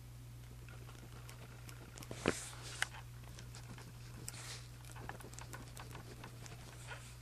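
Pen writing on journal paper: irregular soft scratching strokes and small ticks, with two sharper clicks about two and three seconds in.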